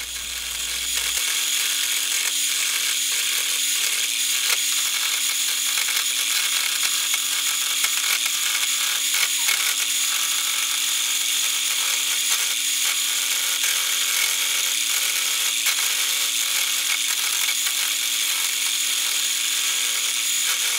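Craftsman wood lathe spinning a wooden spindle blank while a hand-held turning tool cuts into it: a steady hiss of cutting wood over a steady motor hum, with faint irregular ticks.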